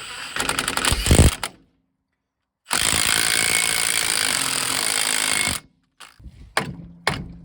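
Power tool running loud in two bursts, the second about three seconds long, each cutting off suddenly. A few sharp knocks follow near the end.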